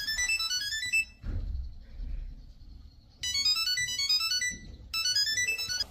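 Bright electronic melody of quick runs of short notes climbing in pitch, ringtone-like. It plays for about a second, pauses for about two seconds of low rumble, then returns for the last two and a half seconds.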